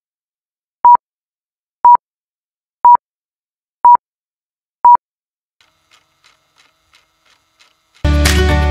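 Countdown-leader beeps: a short, high electronic beep once a second, six in all, then a few faint ticks before music starts abruptly near the end.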